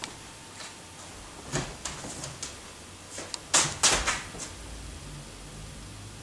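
Scattered knocks and clicks, then a cluster of louder scuffs and knocks about three and a half to four seconds in: an actress moving about a dark stage and taking up a satchel.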